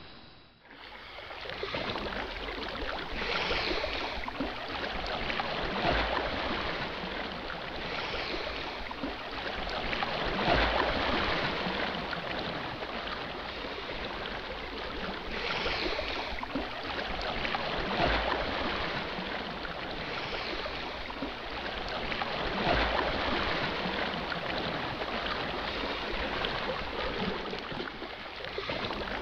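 Water splashing and sloshing close by, swelling and easing in uneven surges every two to three seconds.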